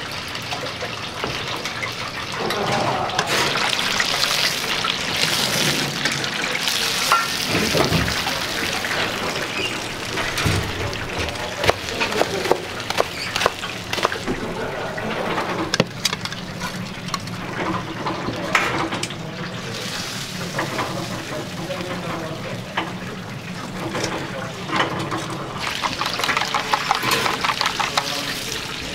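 Commercial kitchen work: a knife chopping crisp deep-fried pork cutlets on a plastic cutting board in a series of sharp cuts, over steady sizzling from the fryer and liquid. Near the end, chopsticks rapidly beat eggs in a metal bowl.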